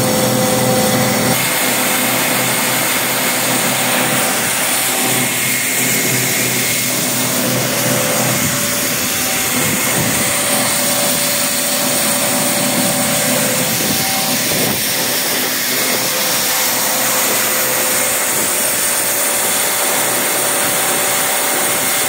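Walinga 7816D Ultra-Vac grain vacuum running under load, its positive displacement blower conveying corn: a loud, steady rush of air with several steady whining tones through it. A low hum drops away about a second and a half in.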